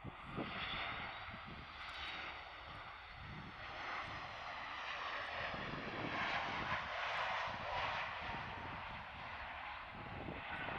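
Boeing 737 MAX 8 jet airliner landing, its CFM LEAP-1B engines making a steady jet rush with a faint high whine that slowly falls in pitch as it passes.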